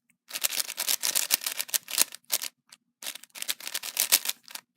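Stickerless Qiyi Wushang 5x5 speedcube being turned fast for its first turns: a rapid run of plastic clicks and clacks as the layers snap round, pausing briefly about two and a half seconds in. New out of the box, it turns a bit locky and tight.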